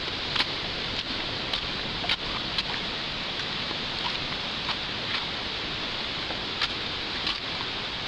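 Steady rushing of the Shiraito Falls water, with scattered short clicks over it.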